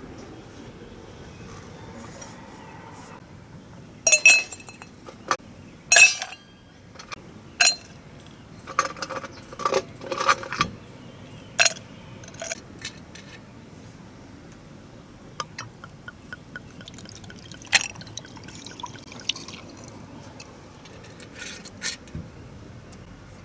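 Cookware and utensils being handled: a scattered series of sharp clinks, the loudest ones ringing briefly, with a busier cluster of clatter about halfway through.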